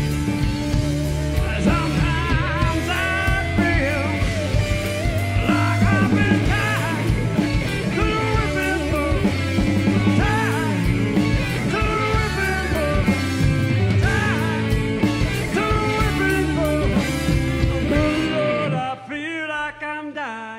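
Live rock band playing, with electric guitar and bass under a male lead singer. About two seconds before the end most of the band drops out, leaving a wavering held vocal line.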